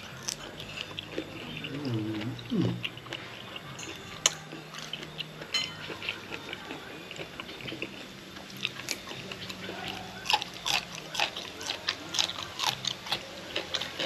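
Close-up mouth sounds of someone eating raw shrimp with spicy seafood dipping sauce: wet chewing, lip-smacking and finger-licking clicks that come thick and fast in the second half. A short hummed vocal sound comes about two seconds in.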